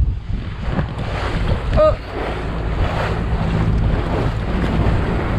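Wind buffeting the microphone and water rushing along the hull of a wooden gaff-rigged sailboat under sail. A short, high squeak sounds once about two seconds in.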